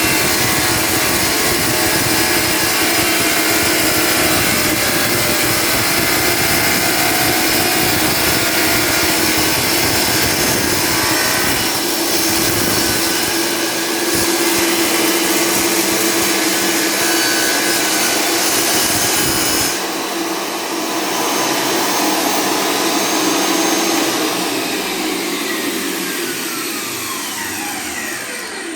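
Dewalt D24000 wet tile saw running and cutting a 45° bevel through glazed porcelain stoneware tile, with a grinding rumble under a steady motor hum. About twenty seconds in the rumble drops away as the cut ends. A few seconds later the saw is switched off and its whine falls as the blade coasts down.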